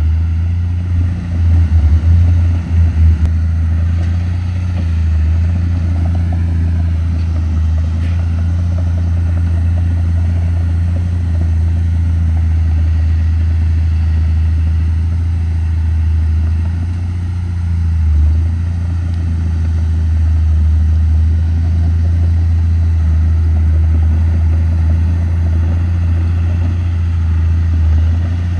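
Bulldozer's diesel engine running steadily under load, with a few brief surges in level about two seconds in and again past the middle.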